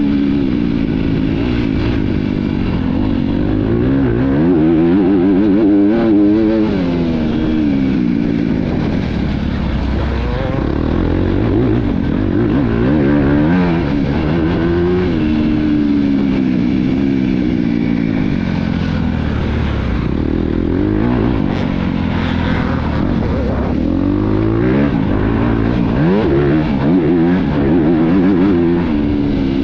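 Motocross bike engine heard from a camera on the bike, revving up and down over and over as the rider accelerates, shifts gear and backs off the throttle.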